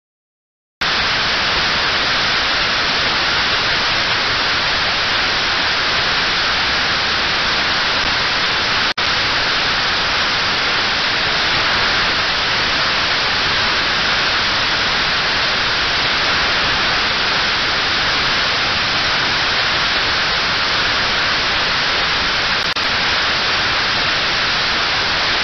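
Loud, steady hiss of static from a software-defined radio receiver tuned to an empty UHF channel with no signal present. The hiss starts about a second in and drops out for an instant about nine seconds in.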